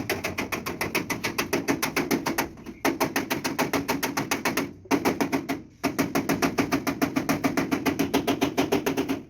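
Rapid, even hammering, about eight strikes a second, on the truck cab's sheet-metal body panels. The hammering breaks off briefly a few times.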